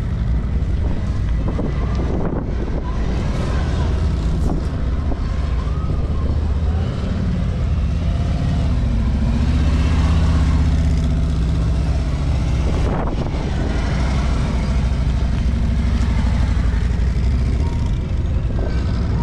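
Large touring motorcycle's engine running at low speed through tight cone turns, a steady low rumble that swells a little about halfway through.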